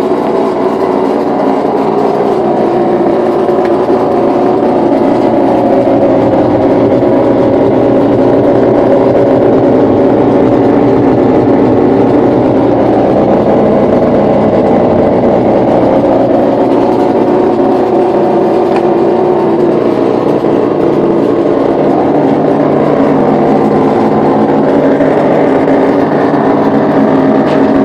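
New LG LFC20786 refrigerator running with a loud, steady, engine-like drone that sounds like a motocross bike, its pitch wavering slightly. The noise is abnormal for the fridge and started as soon as it was plugged in.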